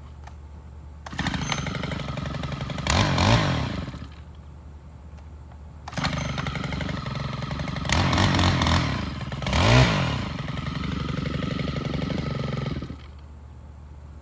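Stihl FS 110 four-stroke string trimmer engine running in two spells, about three seconds and then about seven seconds, revved up and back down during each.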